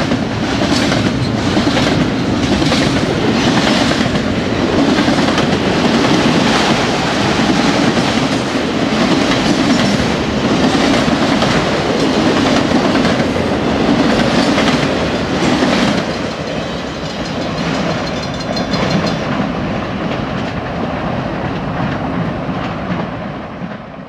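Freight train cars rolling past at speed: steel wheels clacking over the rail joints over a steady rumble as double-stack container cars and autorack cars go by. The sound drops about two-thirds of the way through as the last cars pass, then fades away near the end.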